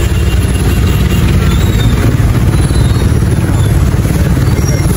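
Steady low rumble of engines: a motorcycle ridden slowly between idling trucks, their engines running close by.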